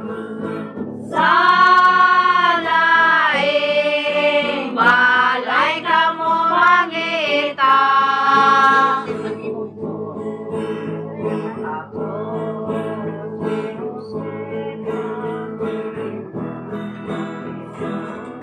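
A group singing together to strummed guitars. For the first half one voice rings out loudly on long held notes with a wavering pitch; after that the singing drops back and the guitars carry on more quietly.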